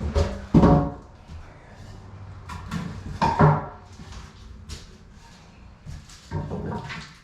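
A few loud knocks and clatters during demolition work, one about half a second in, one around three and a half seconds and one near the end, each followed by a brief ringing.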